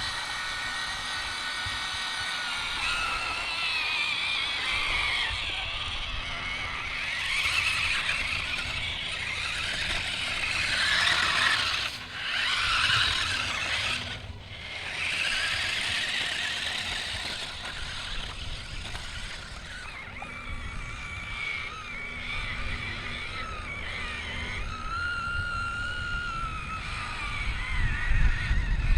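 DEERC 1:16 amphibious RC monster truck's dual electric motors whining, the pitch rising and falling with the throttle, dropping out briefly twice about halfway through.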